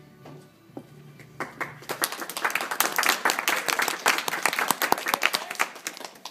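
Audience clapping, starting about a second and a half in, when the recital music fades out, and dying down near the end.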